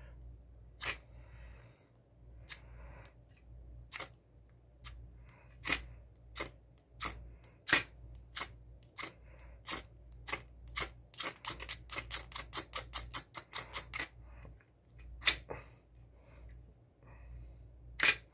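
A ceramic striker scraping down a small ferrocerium rod over and over in short, sharp strokes. It starts irregular, then speeds up to a quick run of about four or five strokes a second past the middle.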